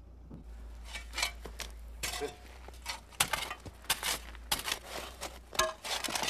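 Irregular sharp clinks and knocks of hard building materials being handled and struck in building work, a few a second, some ringing briefly.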